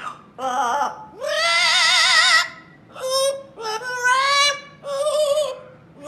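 Yellow-naped Amazon parrot singing in an operatic style: five high, wavering phrases with a strong vibrato, the longest about a second and a half.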